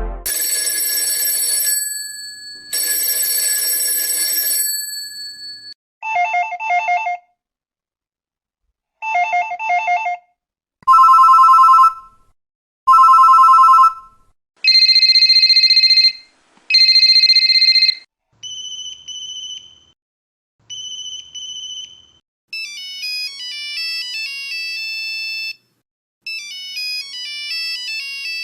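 A series of old telephone and mobile phone ringtones played one after another, each ringing twice with a short gap. First a ring with high tones that fade out, then warbling trills, two-tone beeps, plain electronic beeps, and near the end a fast beeping tune.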